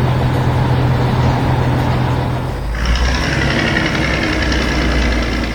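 Heavy construction vehicle's engine running steadily. About three seconds in its note drops lower and a higher whine joins it.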